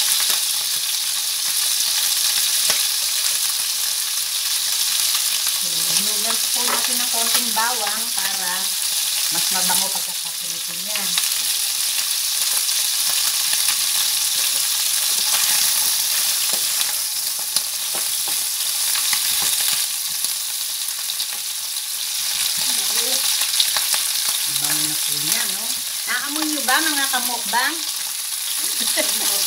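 Chicken pieces for adobo sizzling steadily as they fry in oil in a skillet, turned now and then with a wooden spatula. The chicken has already been boiled in its marinade and is now being browned.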